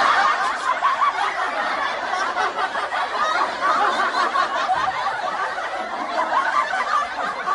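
Canned laughter: a crowd of many people laughing together at an even level.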